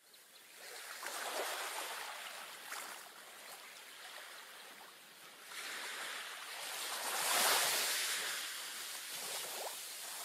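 Ocean surf: waves washing in and drawing back, swelling loudest about a second and a half in and again around seven and a half seconds.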